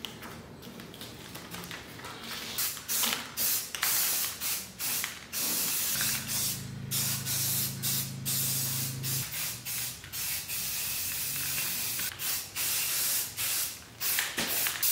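Aerosol spray-paint can spraying paint onto a metal cart in bursts, some short and some held for several seconds. The spraying starts about two seconds in.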